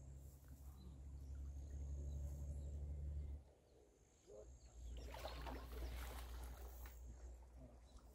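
A low rumble that stops about three and a half seconds in, then a burst of water splashing around five seconds in as a hooked fish thrashes in the landing net at the water's edge.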